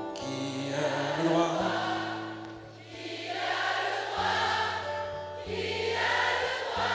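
Live pop ballad: a man singing over acoustic guitar and band, with held bass notes that change every second or so. The music dips briefly about three seconds in.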